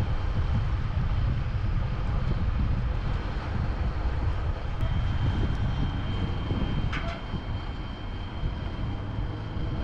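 Steady, loud low rumble with a faint high-pitched whine coming in about halfway and a single sharp click about seven seconds in.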